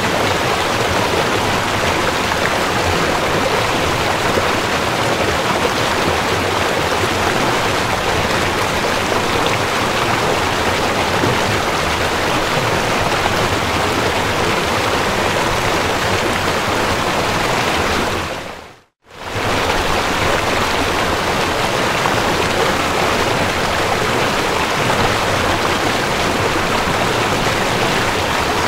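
Steady rush of river water flowing. It cuts out for under a second about nineteen seconds in, then resumes.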